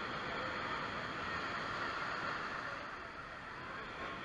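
Steady rushing noise of sea water.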